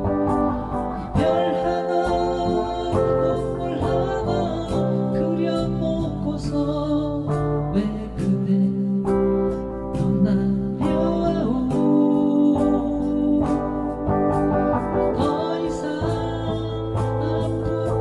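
Background music: a song with guitar accompaniment and a singing voice, playing at a steady level.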